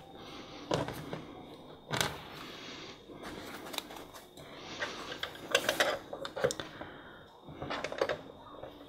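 Wire binding being threaded by hand through punched holes in card: scattered light metallic clicks and rattles of the wire loops against the card, most frequent about five to six seconds in.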